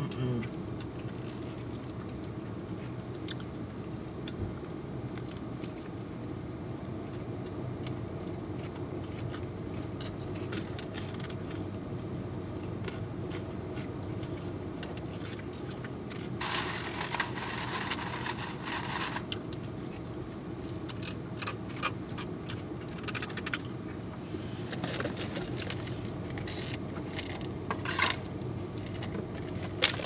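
Close-up chewing of a fried chicken sandwich: wet mouth clicks and crunching, with a louder crunching stretch about halfway through and a run of quick sharp clicks after it. Underneath is a steady low hum of the car cabin.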